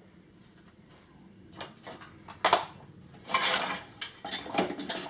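Tools and odds and ends being picked up, moved and set down on wooden workshop shelves. A few light clicks, then from about two and a half seconds in a sharp knock and a run of clattering and knocking of hard objects.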